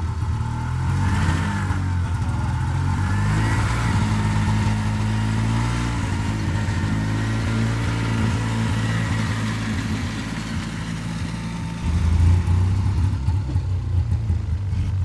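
Arctic Cat Jag snowmobile's two-stroke engine running steadily at idle, louder from about twelve seconds in.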